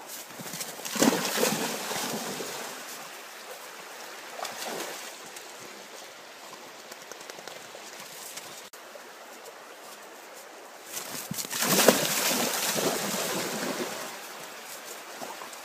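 Stream water running steadily, with two louder rushes of water noise, the second a Labrador splashing as it swims through the stream.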